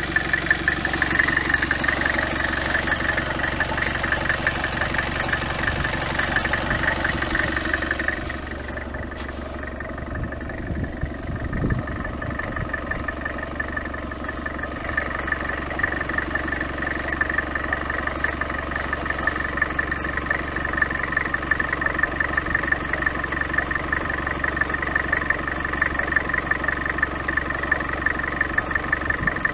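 A motor vehicle's engine idling steadily with a fast, even pulse, running on unchanged throughout apart from a slight dip about a third of the way in.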